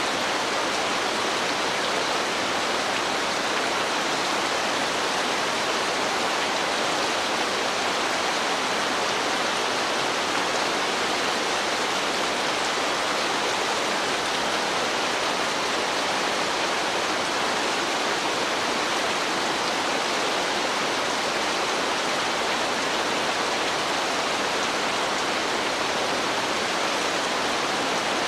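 Steady heavy rain: an even, unbroken rushing hiss with no separate drops standing out.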